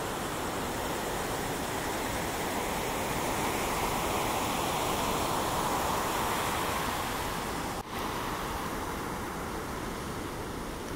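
Heavy ocean surf breaking, a steady rush of whitewater that swells in the middle. It drops out for an instant about eight seconds in, then carries on.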